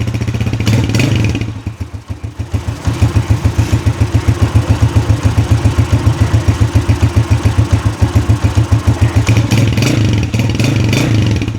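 Honda TMX motorcycle's single-cylinder four-stroke engine through its stock exhaust pipe. It revs briefly, then settles to an idle of even exhaust pulses, about six to seven a second, and rises slightly near the end.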